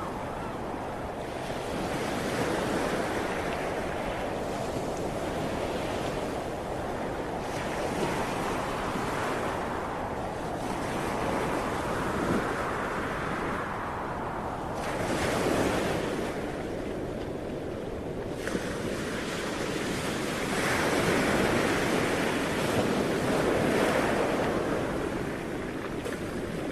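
Ocean waves breaking and washing on the shore, a steady rush of surf that swells and eases as each wave comes in, with wind in the background.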